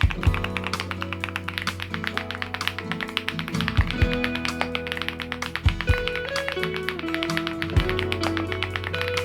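Rapid typing on a mechanical keyboard, many keystrokes a second with an occasional louder knock, over background music.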